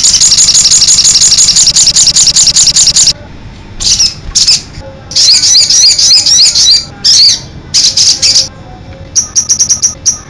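Sogon songbird singing loudly: a fast run of rapid high notes, about ten a second, for the first three seconds, then short twittering phrases of rising and falling chirps with brief pauses between them.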